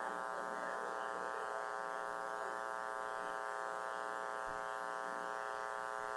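Steady electrical buzz, an even hum with many overtones that holds unchanged throughout.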